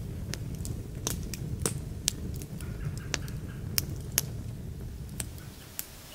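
Wood campfire burning, crackling with a dozen or so sharp pops and snaps of burning sticks over a low, steady rumble of flame.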